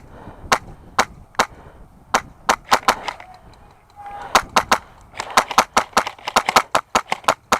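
Airsoft rifle firing single shots in quick, irregular succession: a few spaced cracks, then a faster run of shots in the second half.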